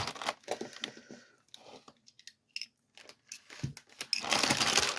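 Packaging being handled and opened: crinkling, tearing rustles in the first second and a half and again from about four seconds in, with a few light clicks in the quieter stretch between.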